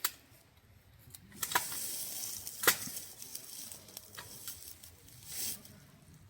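A few sharp clicks and knocks, the loudest a little under three seconds in, over a faint rustling hiss.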